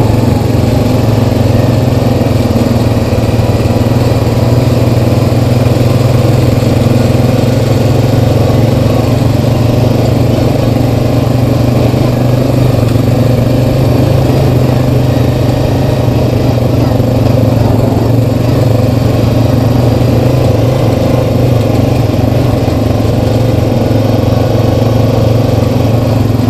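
Honda Rancher 420 ATV's single-cylinder four-stroke engine running steadily while riding along a dirt trail, heard from on board.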